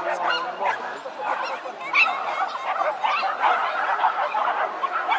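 Dogs barking and yipping over and over, many short barks overlapping.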